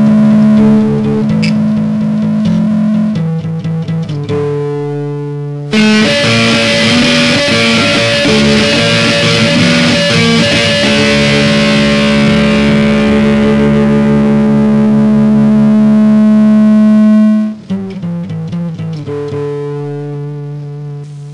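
Electric guitar through distortion playing long chords, each left to ring and fade. One chord struck about six seconds in rings for some ten seconds before a few shorter chords and a last one fading away.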